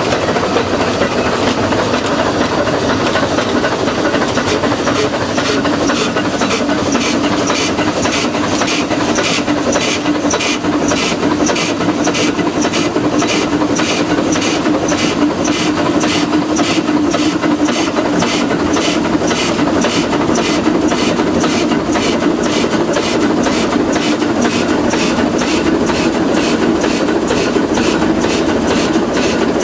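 Shay geared steam locomotive running, heard from inside its cab: a steady hiss and rumble with a rapid, even beat of about two to three exhaust chuffs a second that sets in about six seconds in and keeps going.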